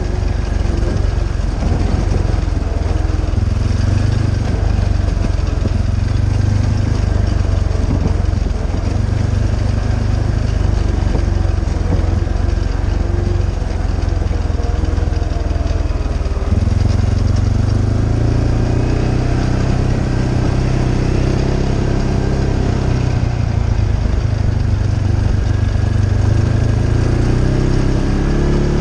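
ATV engine running under way on a rough dirt trail, its pitch rising and falling with the throttle and climbing twice in the second half.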